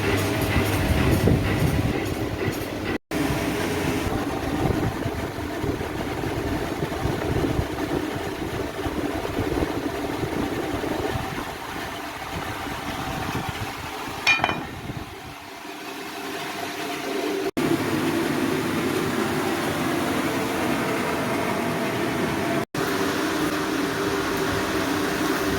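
Steady mechanical running noise of blacksmith-shop machinery, with one brief metallic ring about fourteen seconds in. The sound drops out for a moment three times.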